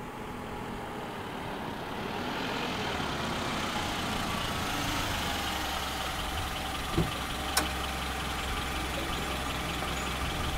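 Car engine running steadily close by, growing louder over the first couple of seconds and then holding, with two short clicks about seven seconds in.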